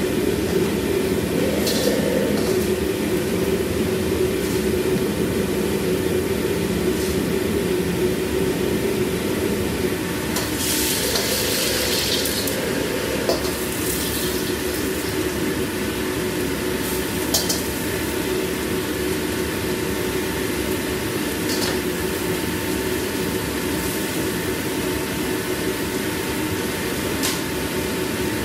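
Steady roar of a commercial kitchen's gas wok burners and extraction hood, with a few short clinks of utensils and a brief brighter hiss about ten seconds in.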